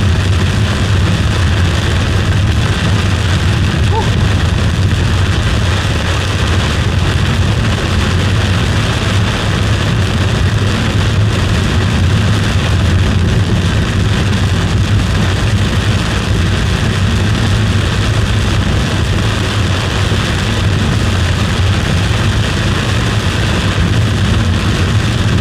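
A car driving: a steady, loud low rumble of engine and road with a constant hiss over it.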